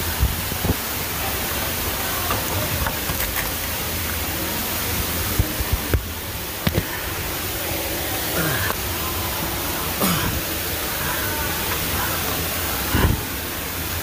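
Steady rush of running water, with scattered sharp knocks.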